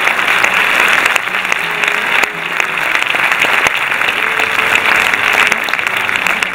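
A roomful of people applauding.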